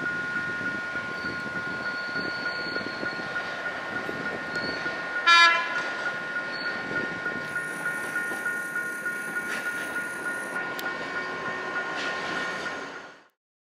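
A Metrotranvía Mendoza light rail car, an ex-San Diego Siemens-Duewag U2, runs up to and past a level crossing, its wheels rumbling on the rails, and gives one short horn blast about five seconds in. Under it a level-crossing warning signal sounds a steady, rapidly pulsing tone.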